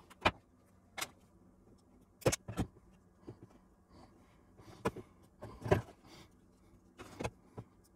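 Handling noise at a workbench: about seven scattered clicks and knocks of side cutters, wire and a bare circuit board being moved and set down on a cutting mat while a trimmed wire is worked into a hole in the board.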